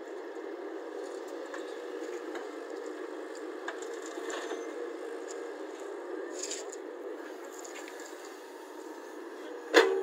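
Caterpillar hydraulic excavator running steadily, with scattered clinks as the empty bucket swings back from the truck, and one sharp knock near the end as the bucket comes down onto the dirt pile.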